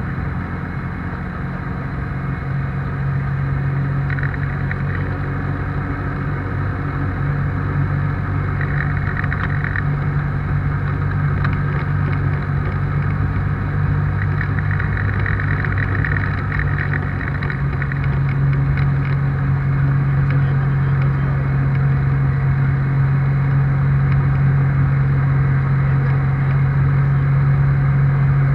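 ICP Bingo ultralight's engine and propeller running steadily on the ground, heard from inside the cockpit. The engine note shifts about halfway through and the sound grows a little louder toward the end.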